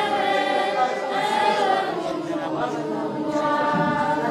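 A crowd of voices singing together without instruments, in long held, wavering notes.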